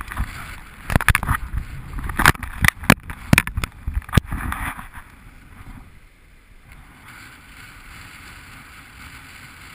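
A worn camera bumping and rubbing against clothing, a quick string of sharp knocks in the first few seconds, then a steady rush of wind and water.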